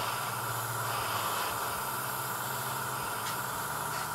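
Airbrush compressor running with a steady hum and a light hiss of air.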